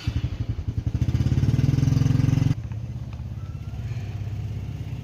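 Small engine starting up suddenly and running loud with rapid even pulses. About two and a half seconds in it drops abruptly to a lower, steady running.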